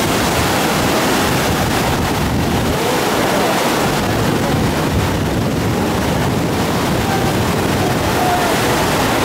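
Fast river water rushing and breaking over a standing wave in high water, a steady loud noise, with wind buffeting the microphone.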